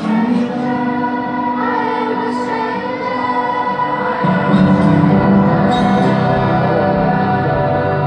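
Youth choir singing held notes in rehearsal; about four seconds in, a stronger low part comes in and the music gets a little louder.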